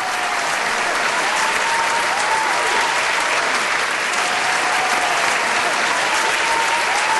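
Audience applauding steadily at the end of a song.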